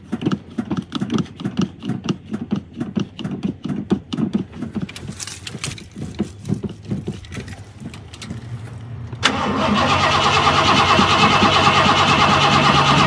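Pickup truck engine cranking on the starter in even pulses for about nine seconds, then catching and running loudly and steadily. The owner puts the hard start down to the truck needing fuel.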